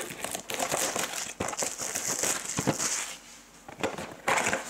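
A sealed box of trading cards being opened by hand: plastic wrapping crinkling and tearing, with cardboard flaps rustling and clicking. The sound eases off briefly about three and a half seconds in.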